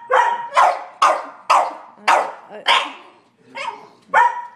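Sheltie, collie and French bulldog barking at a squirrel outside: a rapid run of about eight sharp barks, with a brief pause a little after three seconds in.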